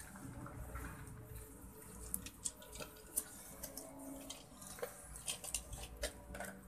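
Faint, scattered light clicks and ticks, irregular and most frequent in the middle of the stretch, over a low rumble.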